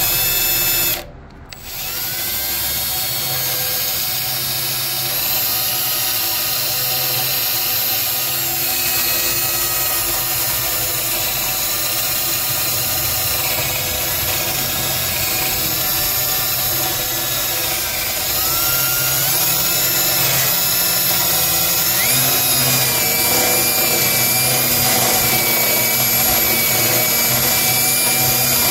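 Cordless drill with a 3/8-inch twist bit boring slowly through a steel mower frame, running steadily with its pitch shifting as the bit bites. It stops briefly about a second in. The cut is slow because the steel is thicker than expected, or the bit is dull.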